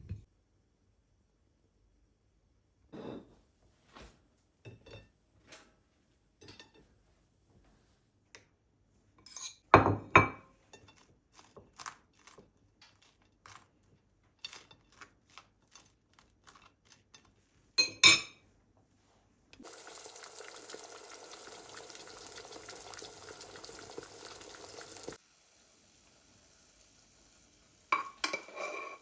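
Kitchen handling sounds: dishes and utensils clinking and knocking, with two louder clatters. A steady rushing noise runs for about five seconds in the second half.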